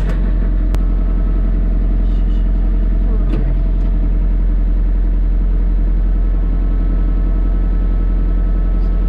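Kubota LX3310's three-cylinder diesel engine running steadily, with a sharp click under a second in.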